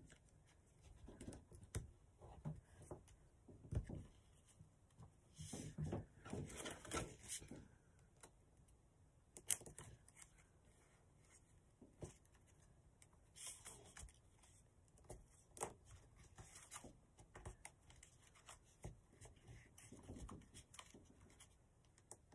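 Faint rustling and crinkling of a sheet of paper being folded and creased by hand, with scattered light ticks and a denser stretch of rustling about six seconds in.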